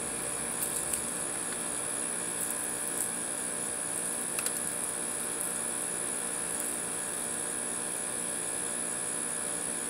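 A steady background drone with a thin high whine, and a few faint clicks of small objects being handled.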